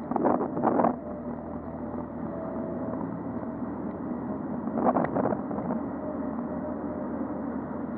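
Road traffic and wind rumble heard from a cyclist's helmet camera, steady throughout, with short louder swells in the first second and again about five seconds in.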